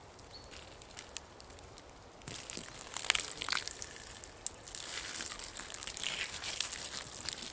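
Water poured from a bottle onto the charred logs of a campfire to douse it, splashing and spattering, with a few sharp crackles. The splashing grows louder about two seconds in and is loudest near the end.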